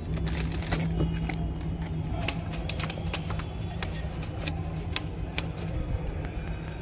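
Sharp little plastic clicks and taps as parts are pressed onto a toy tractor model, about a dozen spread irregularly, over a steady low hum.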